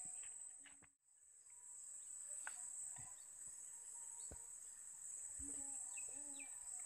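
Insects, crickets or similar, trilling in one continuous high-pitched drone from the pond-side vegetation, briefly cut out about a second in. There are a few faint knocks and chirps under it.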